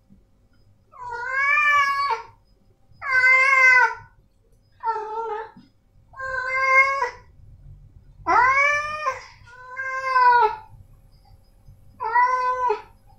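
Male cat meowing loudly: seven drawn-out calls, each about a second long, with short pauses between them.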